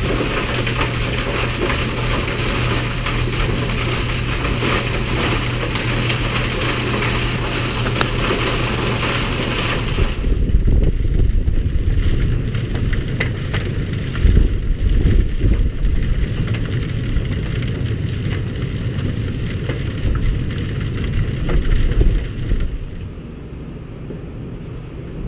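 Tractor engine running in a blizzard, with strong wind noise and gusts buffeting the microphone. About ten seconds in, the engine's steady hum and the hiss fade, and low, gusty rumbling takes over, with several louder gusts.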